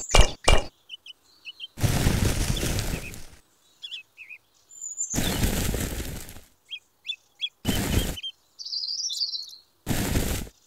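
Sand poured from a small cup into a miniature brick well, four pours each giving a short hiss, the first two about a second and a half long and the last two about half a second. Small birds chirp in the gaps between the pours.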